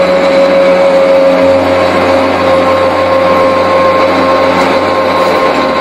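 Lifeboat davit winch running steadily as it hoists an enclosed lifeboat, a loud steady whine with a low hum beneath that shifts about a second and a half in and again near the end.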